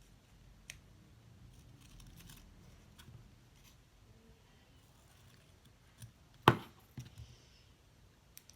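Scissors cutting paper: a few faint, scattered snips, then a sharp knock about six and a half seconds in, the loudest sound, followed by a smaller one.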